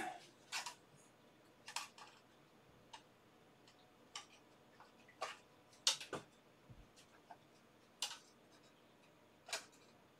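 Handheld plastic test meters being handled on the bench: scattered light clicks and knocks, roughly one every second.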